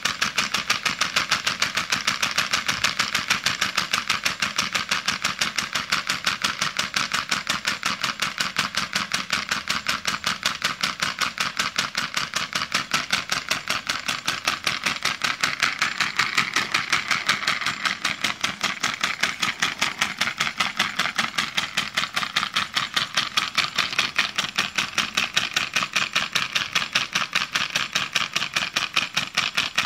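Homemade compressed-air engine with a brass cylinder and valve running steadily: a rapid, even train of air exhaust puffs with a hiss, several a second.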